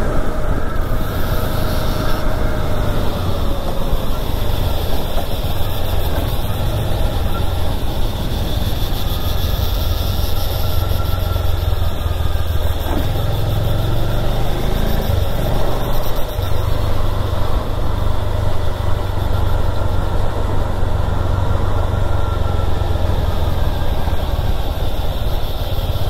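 Motorcycle engine running steadily under way, with wind rushing over the rider-worn microphone.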